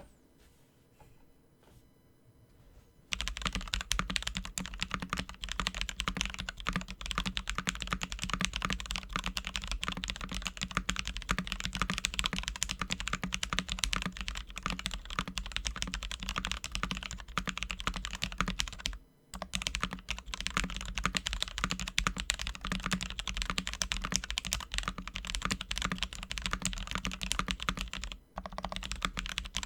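Fast continuous typing on a Kemove Snowfox mechanical keyboard with lubed, filmed Holy Panda tactile switches and DSA keycaps. It starts about three seconds in and breaks off briefly twice.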